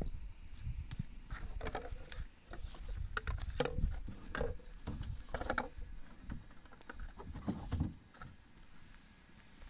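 Irregular knocks, scuffs and footsteps as a plastic basin and a plastic water jug are carried and set down on stony ground, quieter for the last couple of seconds.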